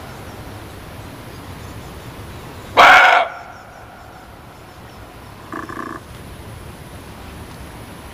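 Muntjac (barking deer) calls: one loud, harsh bark about three seconds in, then a second, quieter call about two and a half seconds later, over a steady hiss.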